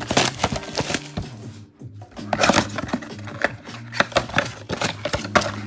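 A trading-card blaster box and its packs being torn open and handled, making a quick, irregular run of sharp ripping, crinkling and tapping noises, over background music.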